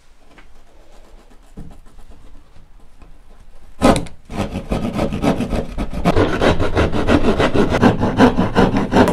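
Hand plasterboard saw stabbed through a sheet of plasterboard with a sharp hit about four seconds in, then sawing with fast, even back-and-forth strokes, cutting out a circle.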